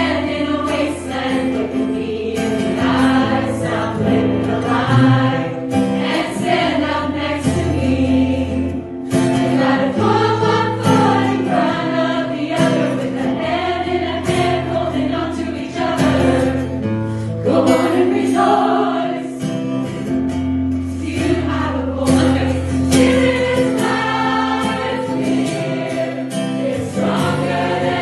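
A choir singing a gospel worship song with instrumental backing and a steady sustained bass.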